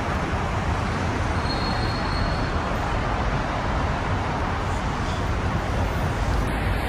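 Steady, even rush of road and tyre noise from a moving car.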